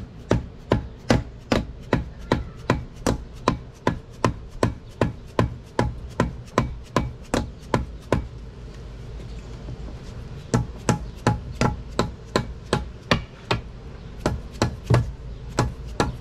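Rubber mallet tapping repeatedly on the lower unit of a 1989 Mercury 90 HP outboard, about two to three blows a second, to knock the lower unit loose from the motor's midsection. The blows pause for about two seconds a little past halfway, then resume.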